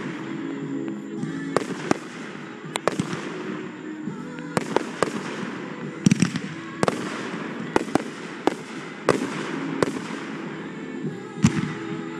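Aerial fireworks going off in an uneven string of sharp bangs, about one or two a second, some in quick doubles and triples.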